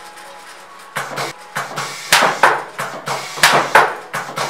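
Satay skewering machine running its cycle: sharp double knocks, one pair about every 1.3 seconds, as it drives bamboo skewers into a tray of meat, over a low steady hum.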